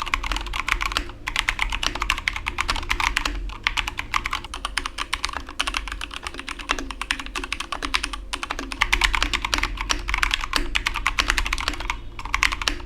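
Fast typing on a Keychron K2 version 2 mechanical keyboard with Gateron Brown switches and a newly fitted set of keycaps: a dense stream of keystroke clicks, broken by a few brief pauses.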